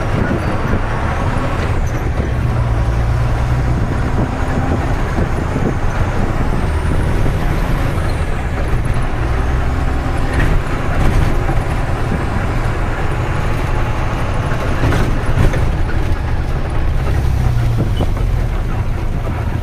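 Tata 3118 twelve-wheeler truck heard from inside its cab while driving: the diesel engine running steadily under the rumble of road noise, with a few short knocks and rattles.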